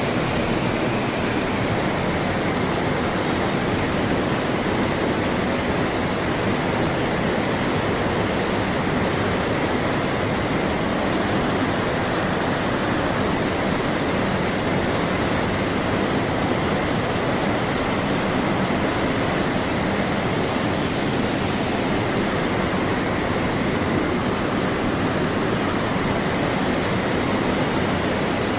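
River water flowing steadily, with a constant, even rush and no breaks.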